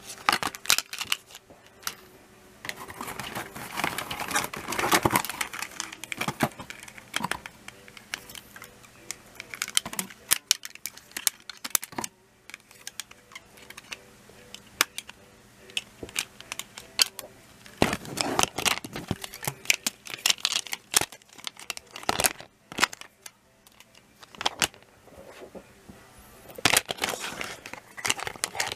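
Hard plastic Plarail toy rail pieces being handled and unpacked: repeated clicks and clatters of plastic knocking together, with stretches of rustling packaging.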